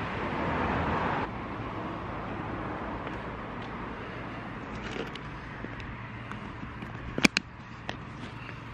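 A cycling jacket being pulled on close to the microphone: fabric handling with a few sharp clicks, the loudest a quick pair a little past seven seconds in, over a steady low hum. A louder hiss in the first second cuts off abruptly.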